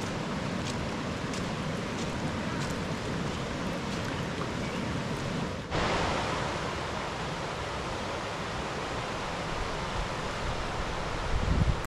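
Steady rush of floodwater running over ground. About halfway in it changes suddenly to a louder, brighter hiss of a flooded creek in full flow. A brief low rumble comes near the end.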